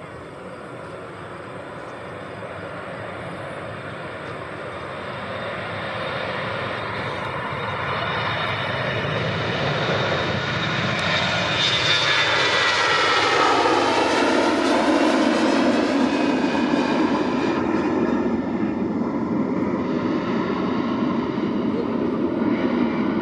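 A jet airliner passing close by. Its engine noise builds steadily to a peak a little past halfway, where a whine falls in pitch as it goes past, then gives way to a lower rumble as it moves off.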